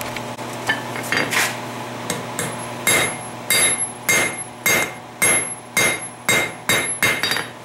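Hand hammer striking a hot steel punch on a Peter Wright anvil, forging it into an oval eye drift. A few scattered blows, then steady strikes about two a second, each with a short metallic ring.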